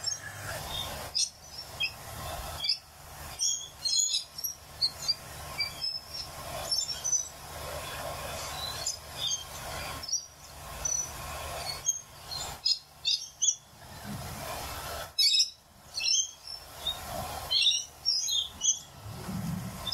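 Rainbow lorikeets and galahs calling, many short high chirps scattered throughout. Under them come a few soft clicks and knocks as the bed and print head of a small 3D printer are pushed by hand.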